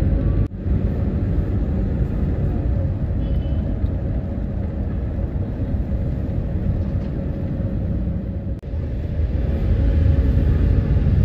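Steady low rumble of city traffic and road noise, heard from a vehicle moving among jeepneys, cars and motorcycles. The sound cuts out sharply for an instant twice, about half a second in and again about three-quarters of the way through.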